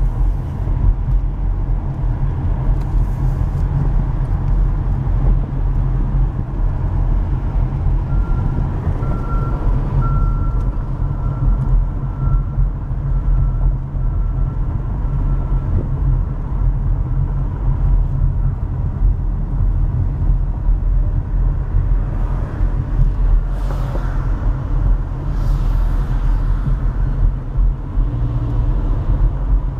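Steady low vehicle rumble, with a faint high whine about a third of the way through.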